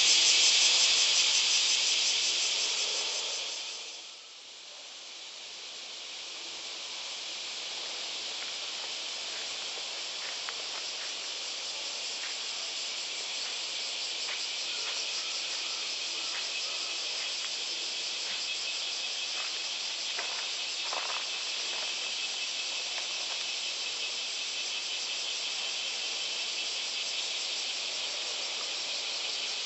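Cicadas singing in chorus, a dense, steady high-pitched hiss. It fades out briefly about four seconds in, then comes back a little quieter and holds steady.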